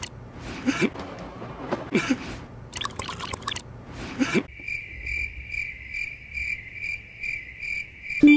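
Gulping and swallowing of a drink, the same short gulp repeated in a loop about once a second. About halfway through it gives way to a high steady tone pulsing about three times a second.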